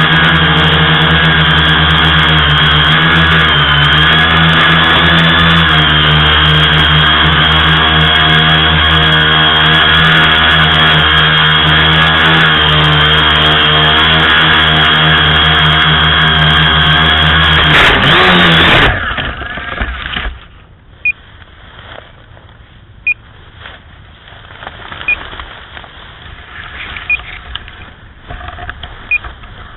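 Tricopter's electric motors and propellers running with a steady whine, heard from the craft's onboard camera. About 18 seconds in the motors wind down in pitch and stop as the craft comes down in the grass, and after that short high beeps sound about every two seconds.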